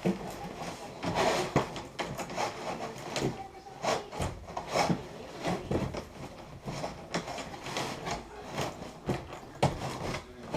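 A stuffed bag of gear being shoved and forced into an aircraft's cargo pod: irregular rubbing and scraping against the pod, with frequent short knocks and bumps.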